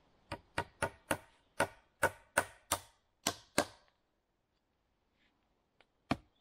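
About ten quick, sharp knocks of a hand tool striking a wooden log, close to three a second, then a pause and one more knock near the end.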